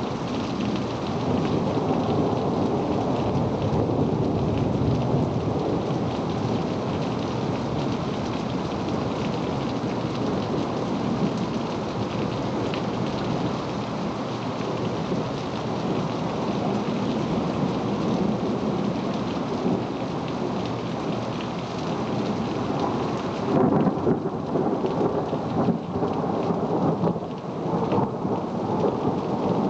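Steady heavy rain with rolling thunder from a night thunderstorm. Several louder jolts of thunder come about three-quarters of the way through.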